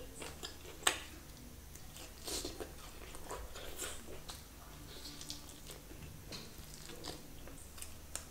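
Close-miked chewing of a mouthful of roti and chicken curry, with sharp wet mouth clicks and smacks. A piece of charred pani ki roti is torn by hand about halfway through, and another bite goes into the mouth near the end.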